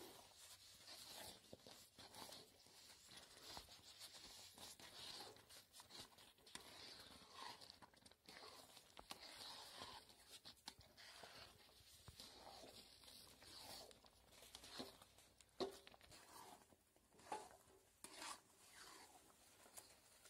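Faint, irregular scraping and squelching of a metal spatula being pushed through thick banana halwa and ghee in an aluminium pan, with an occasional sharp tick of metal on the pan.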